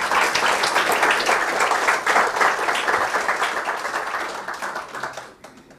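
Audience applauding: many hands clapping in a dense patter that swells at first, holds, then dies away near the end.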